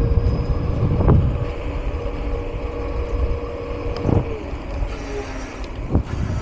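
Wind buffeting the microphone on a moving electric bike, with a steady mid-pitched whine that falls away about four seconds in and a few short knocks.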